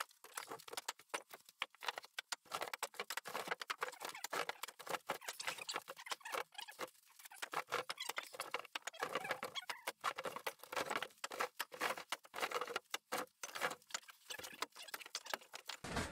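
Split firewood being stacked by hand: a steady run of small wooden knocks and clatters as pieces are set onto the pile, with a short pause about seven seconds in.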